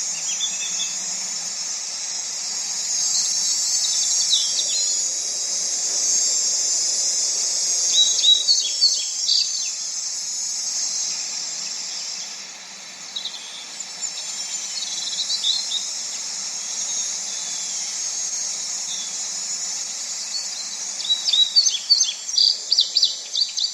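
Steady high-pitched drone of insects, with short bursts of bird chirps every few seconds and a quicker run of chirps near the end. The insect drone dips briefly about halfway through.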